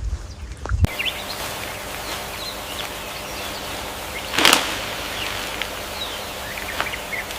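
Outdoor ambience: a steady noisy hiss with faint, short bird chirps scattered through it. One brief louder whoosh comes about four and a half seconds in.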